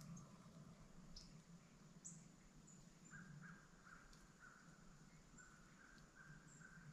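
Near silence outdoors, with faint, distant animal calls repeated about twice a second from about three seconds in, and a few high bird chirps.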